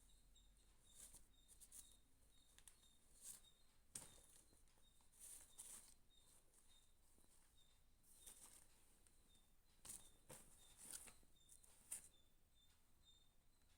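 Near silence broken by faint, irregular rustles and light clicks, as of a parcel and its packaging being handled and opened.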